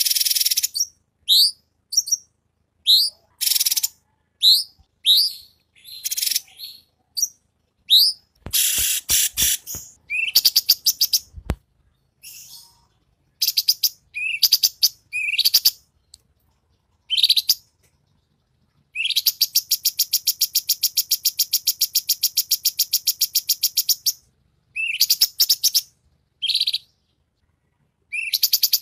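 Recorded birdsong of cucak cungkok, cililin and kapas tembak mixed together: a run of short, sharp high chirps that sweep down in pitch, then a long, fast trill of rapidly repeated notes lasting about five seconds in the second half. A few low knocks sound near the middle.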